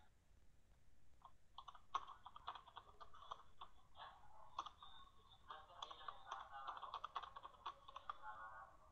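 Faint computer keyboard typing: irregular key clicks that start about a second and a half in and go on to the end.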